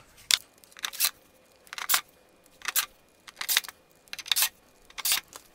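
Handling sounds from the plastic footplate cover of a Concept2 rowing machine being fitted into place: about seven short rasping scrapes, each under a second apart, with no power-tool whine.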